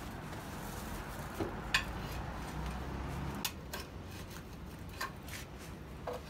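A metal hand trowel clinking and scraping against a terracotta plant pot as it digs into the soil: a handful of sharp clinks spaced a second or two apart.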